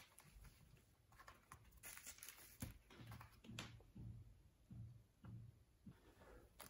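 Near silence, with a few faint soft rustles and taps of paper documents being handled and set down.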